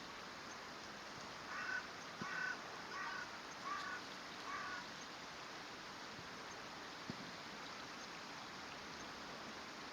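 A crow cawing five times in a row, about one caw every 0.7 seconds.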